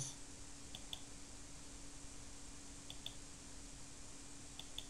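Faint computer mouse clicks, three quick double ticks spread over a few seconds, over a steady low hum.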